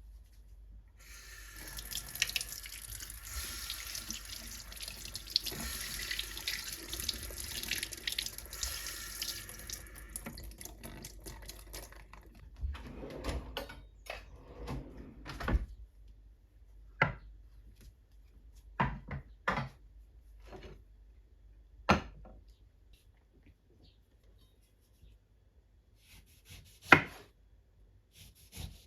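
Tap water running into a sink for about ten seconds, then shut off, followed by a series of separate knocks and clatters, the sharpest one near the end.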